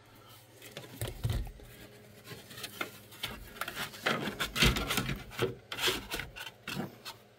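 A kick panel being pushed and worked into place in a truck footwell, scraping and rubbing against the carpet and cab side, with a few light knocks.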